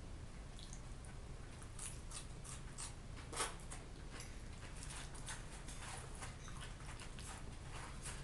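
Close-up mouth sounds of a man chewing fried potatoes and lightly salted herring: an irregular run of small wet clicks and smacks, with one louder smack about three and a half seconds in, over a low steady hum.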